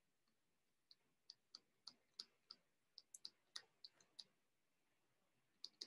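Faint, irregular clicks of a stylus tip tapping on a tablet as words are handwritten: a run of about a dozen taps, a pause about four seconds in, then more taps starting near the end.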